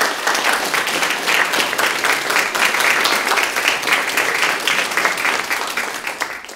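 Audience applauding, many hands clapping together at the close of a lecture, holding steady and cutting off suddenly at the end.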